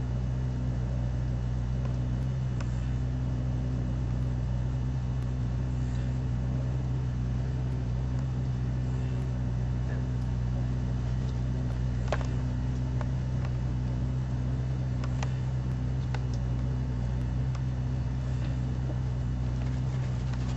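A steady low machine hum that does not change, with a few faint clicks.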